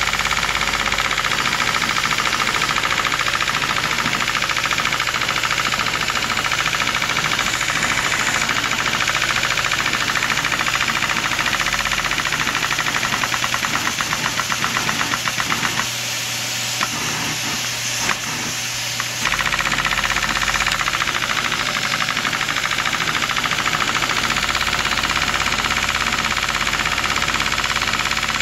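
LEGO-built vacuum engine running, its plastic parts clattering in a fast, steady rhythm that kinda sounds like a diesel. About halfway through, the knocks slow and stand out one by one, then the sound drops quieter for about three seconds before the clatter picks up again. The engine is lubricated with lotion and doesn't run very good.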